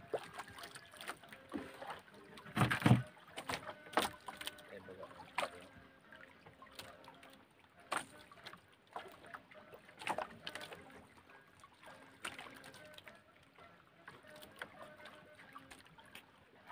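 Water slapping and lapping against the hull of a small wooden outrigger boat, in irregular short knocks and splashes, the loudest about three seconds in.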